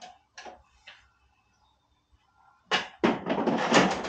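Handling noise as batteries are fitted into a Greenworks 80V electric lawn mower: a few light clicks, then after a short pause a dense run of rattling and knocking of plastic parts.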